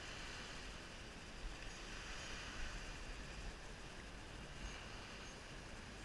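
Faint, steady wash of small lake waves on the shore, swelling gently, with a low wind rumble on the microphone.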